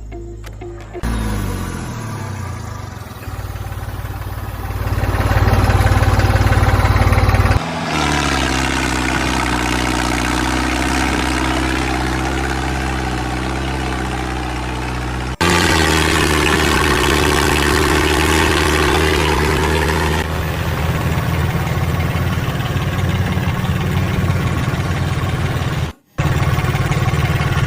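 A small motor running steadily with a humming drone, driving a homemade mini thresher. The sound jumps abruptly in pitch and loudness several times, as separate takes are cut together.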